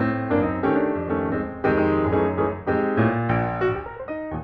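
Background piano music, chords struck in a steady pattern.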